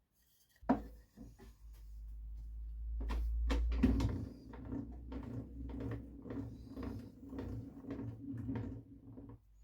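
Drawer slides on a table-saw tenoning jig being run back and forth, giving a rolling rumble with a rapid series of knocks and rattles that stops near the end.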